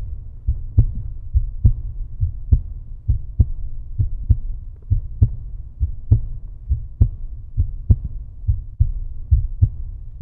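End-screen background track: a deep bass pulse, a strong thump a little more than once a second with softer beats between, like a slow heartbeat.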